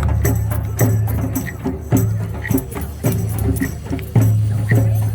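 Ceremonial drumming music: a deep drum beats a steady pulse about once a second, with lighter strokes and shaken rattles in between.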